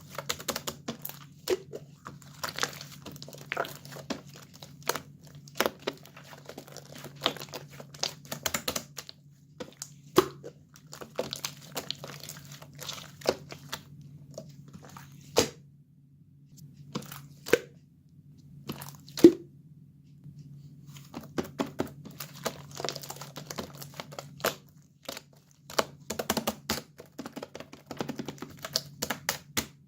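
Purple slime being squished and pressed by hand, giving irregular crackling clicks and small pops with short pauses, over a steady low hum.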